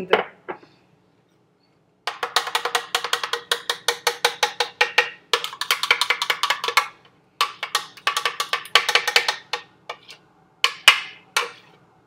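A spoon scraping and knocking inside a plastic blender jar, clearing out a thick, creamy spread: a rapid clatter of strikes, several a second, in runs with short pauses.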